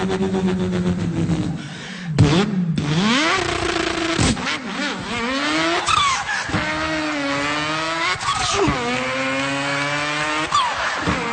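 A man's vocal impression of a car engine revving up through the gears: the pitch climbs and drops back at each shift several times, with a few sharp pops between shifts.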